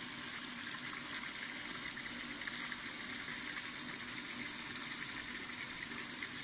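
Automatic rice and bean washer pouring water and washed rice from its curved outlet pipe into a steel hopper: a steady rush of splashing water, with a faint low hum beneath.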